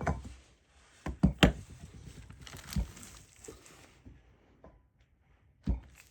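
Scattered sharp knocks and clunks of kitchen work: about six separate knocks, the loudest a quick pair about a second and a half in.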